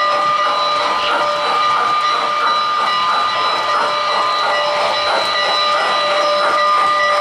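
O-gauge model steam locomotive's electronic sound system: rhythmic chuffing about three to four times a second over a steady steam hiss, with steady tones held beneath it.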